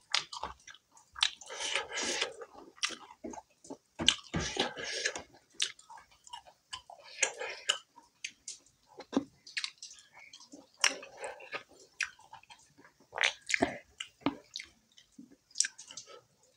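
Close-up chewing of rice and chicken kebab eaten by hand: irregular wet mouth sounds, lip smacks and soft clicks, with a brief finger-sucking smack about halfway through.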